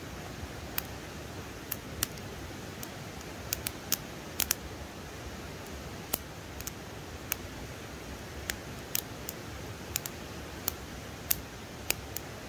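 Irregular sharp clicks, about twenty of them, scattered over a steady rushing hiss.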